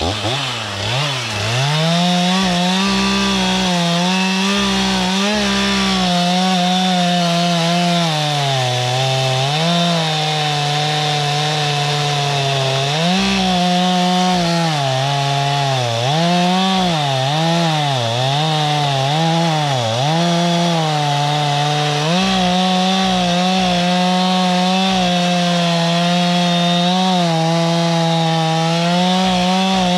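Gas chainsaw revved up and cutting into wood, its engine note sagging and picking up again several times as the chain loads in the cut, then running steadily at high speed.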